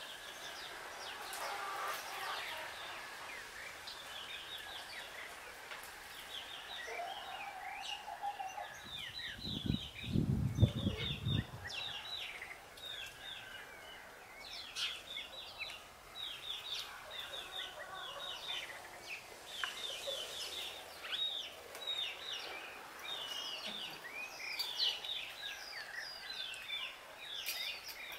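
Small birds chirping and twittering in quick repeated runs. A brief low rumble, like a bump or gust on the microphone, comes about ten seconds in and is the loudest moment.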